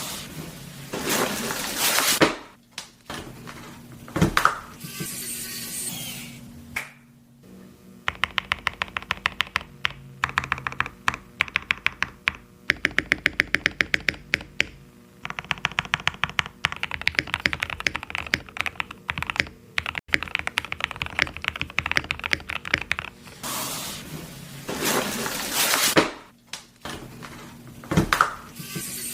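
Typing on a mechanical keyboard fitted with Gazzew Boba U4T tactile switches: runs of fast, even keystrokes, with a few louder, noisier swishes near the start and near the end.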